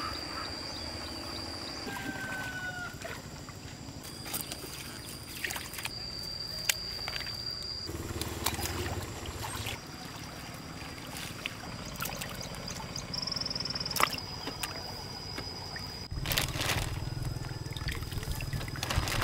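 Water splashing and trickling as a push net is worked through a fish pond and fish are lifted dripping into a basin of water, with scattered short knocks. A steady high-pitched whine comes and goes behind it.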